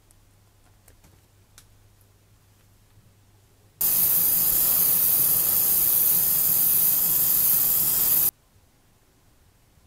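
A steady hiss of pressurised air or spray from a nozzle, starting suddenly about four seconds in, lasting about four and a half seconds and cutting off abruptly.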